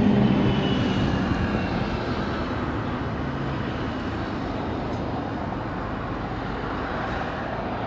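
Outdoor city traffic: a passing motor vehicle's engine fades away over the first couple of seconds, leaving a steady broad hum of traffic that slowly grows quieter.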